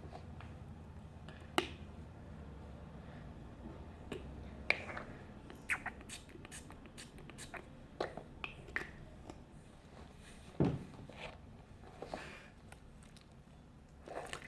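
Slime being worked by hand: scattered small sticky clicks and smacks at irregular intervals, with one louder smack a little after the middle.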